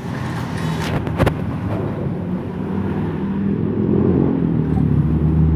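A motor engine running steadily nearby, with two sharp clicks close together about a second in.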